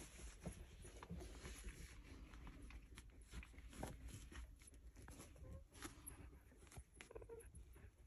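Faint snuffling and rustling from sleeping golden retriever puppies, with scattered small clicks and a few brief soft sounds.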